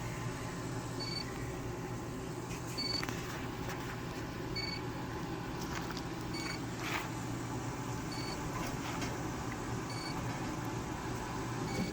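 Short high electronic beeps from the outdoor wood boiler's controller, repeating evenly about every second and a half to two seconds, about seven times, over a steady low hum.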